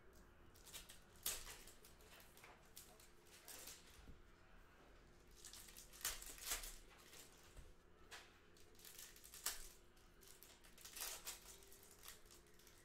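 Faint handling of Panini Hoops basketball trading cards: a pack wrapper crinkling and cards being flicked through by hand, as scattered short rustles, a few of them a little louder.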